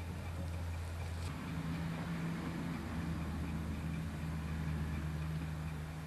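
A low, steady mechanical hum that shifts in pitch about a second in, over faint background noise.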